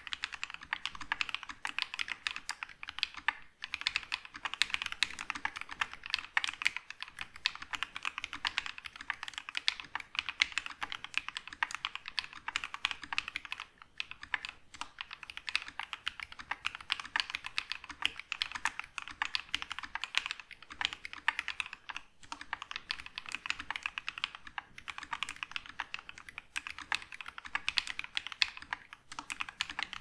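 Fast typing on a mechanical keyboard fitted with Alpaca linear switches (polycarbonate top housing, nylon bottom housing, POM stem, lightly factory-lubed): a dense, quick run of keystrokes broken by a few short pauses.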